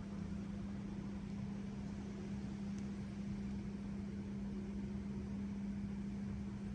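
Faint, steady road-traffic noise from a nearby road, heard through a closed window, with a constant low hum under it. Only a little traffic sound gets through.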